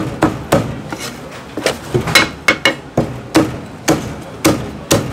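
Chinese cleaver chopping roast goose on a thick round wooden chopping block: about a dozen sharp chops at an uneven pace, some in quick pairs.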